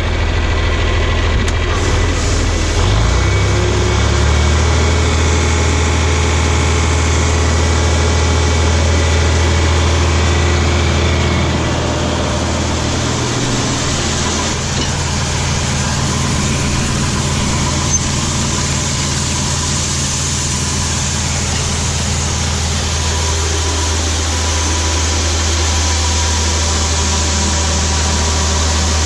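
John Deere 4020 tractor engine running steadily to drive a grain auger; the engine note steps up about three seconds in and then holds.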